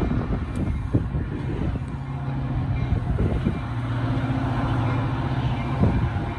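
Metra bilevel commuter cars rolling past at close range, with the wheels clicking over rail joints. A steady low hum sets in about two seconds in and fades near the end, over a rumble of wind on the microphone.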